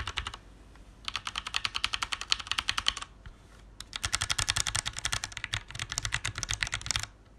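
Rapid typing on a Ducky Shine 2 mechanical keyboard's Cherry MX Red linear switches, in three runs of fast keystrokes with short pauses between them. The key clicks are soft and light, without the sharp click of blue switches.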